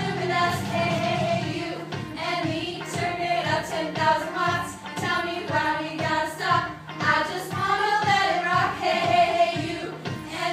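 A song with sung vocals over backing music with a steady beat.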